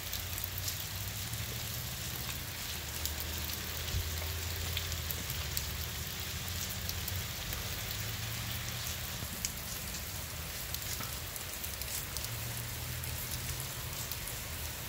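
Steady light rain falling on a street and nearby surfaces, with scattered drop ticks over an even hiss and a low steady rumble underneath.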